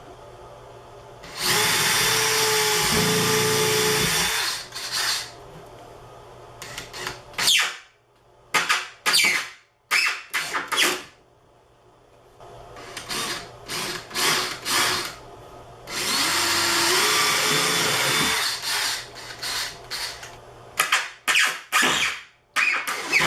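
Power drill boring pilot holes and driving drywall screws into 3/4-inch MDF panels. Two long steady runs of the motor, about a second in and again about sixteen seconds in, each followed by a string of short trigger bursts as screws are driven home.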